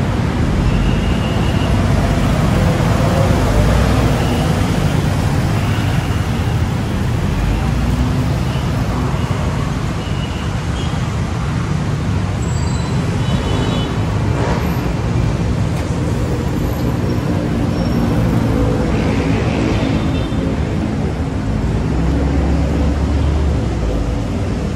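Busy road traffic: the steady engine and tyre noise of cars and buses passing, with brief high squeaks now and then.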